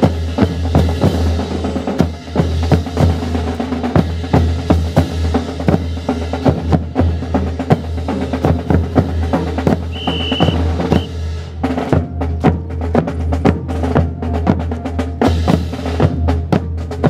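Honor guard drum section's snare and bass drums playing a steady marching cadence, quick snare strokes and rolls over a sustained bass drum beat.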